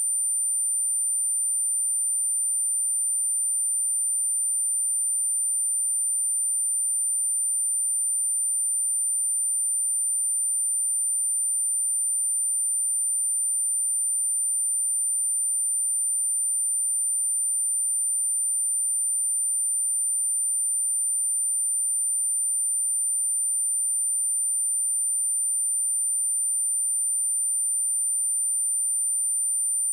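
Steady pure sine-wave test tone at 9117 Hz, a single high-pitched whistle-like note held at constant level without a break.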